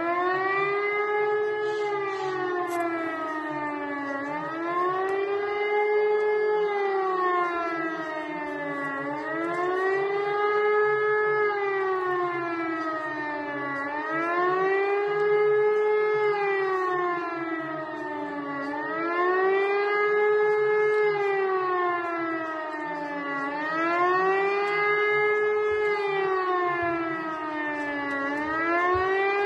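Civil-defence air-raid siren sounding the warning signal: a loud wailing tone that rises and falls smoothly about every four and a half seconds. It is the undulating alert tone, here sounded as a test on a nationwide warning day.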